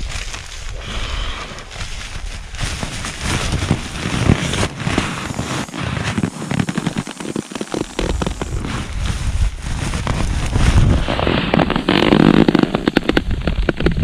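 Nylon camping gear crinkling and rustling as it is handled: a stuff sack and an inflatable sleeping mat being pulled out and unrolled, a dense run of small crackles that grows busier near the end.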